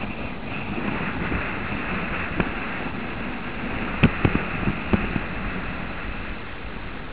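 Skis sliding and scraping over snow, with wind rushing over the camera microphone as a steady noise, and a few sharp knocks about four to five seconds in.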